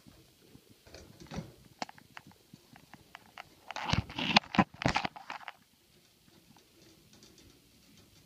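Close rustling and scraping as the phone rubs against a cat's fur and the bedding of a wire trap, loudest about four to five seconds in, with scattered light clicks. Underneath, the cat purrs faintly.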